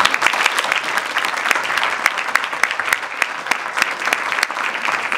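Audience applauding: many hands clapping steadily in a small hall.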